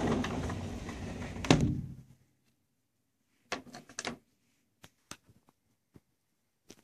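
A door, plausibly a sliding door, is shut with a single loud thud about a second and a half in, and the steady rush of outdoor wind noise drops away almost to silence. A few faint clicks follow.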